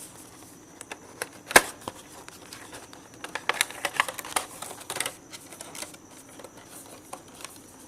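Handling of a plastic mobile charger adapter and its packaging: one sharp click about a second and a half in, then a run of small clicks and rattles for a couple of seconds, tapering to a few scattered clicks.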